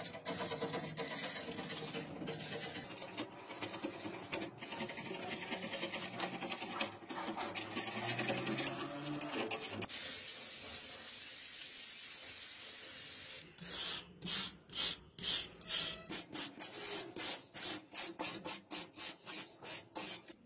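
A metal tool scraping rust off a heavily rusted revolver frame, in short rough strokes. About halfway through comes a steady hiss of liquid spraying onto the rusted metal for a few seconds. Then rhythmic scrubbing follows at about three strokes a second.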